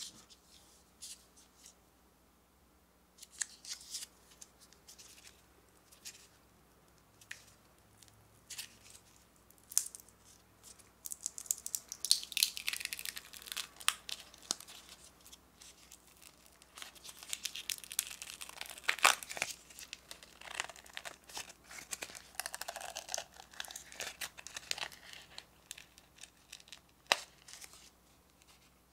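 Thin plastic film lid being peeled off a plastic jelly cup: crackling and tearing of the film. There are a few light handling clicks at first, then dense crackling from about ten seconds in, with a sharp crack near the end.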